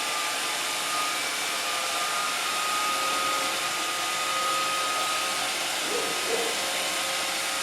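iRobot Roomba 560 robot vacuum running, a loud steady whoosh of its vacuum motor and brushes with a faint steady whine.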